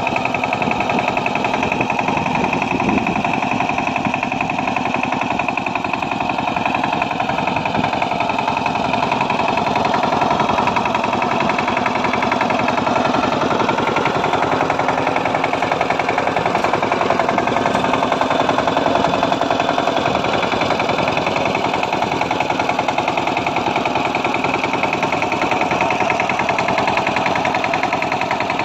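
Kamco power tiller's single-cylinder diesel engine running steadily under load with a rapid, even firing beat, its rotary tines churning dry soil.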